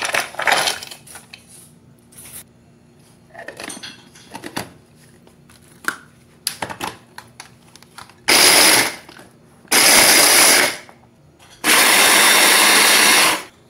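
Electric mini chopper running in three short pulses, the last the longest, grinding Oreo biscuits into fine crumbs. Before the pulses come clicks and knocks of the plastic bowl and lid being fitted.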